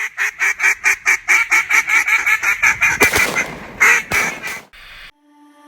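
A rapid, even run of duck quacks, about six a second for three seconds, followed by a few louder, rougher calls.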